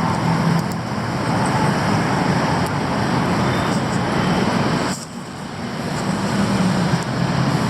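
Street traffic noise: a steady wash of vehicle engines and tyres, with a low engine hum, dipping briefly about five seconds in.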